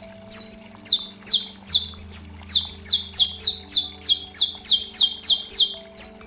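Saffron finch (canário-da-terra) singing its 'estalo' song: a long run of loud, sharp, high notes, each slurring downward, at about three a second and quickening slightly in the middle. Faint steady background music sits underneath.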